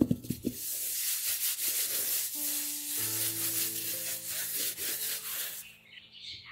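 Hands rubbing a paper towel pressed over zucchini slices to soak up their moisture: a few quick taps at the start, then steady dry rubbing of paper that stops shortly before the end.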